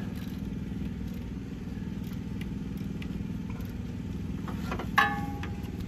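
A machine running with a steady low hum. About five seconds in there is a short, clear tonal sound.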